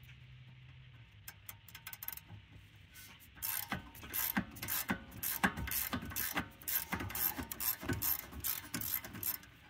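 Ratchet wrench clicking as it turns out a brake caliper bolt on a 2020 Dodge Charger, the bolt having just broken loose through its thread locker. The clicks are faint at first, then come thick and fast from about three seconds in.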